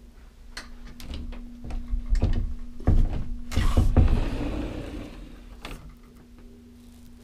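Camera handling noise: a run of knocks and clicks, then a loud rubbing rush about three and a half seconds in as the camera body brushes against a surface, all over a steady low hum.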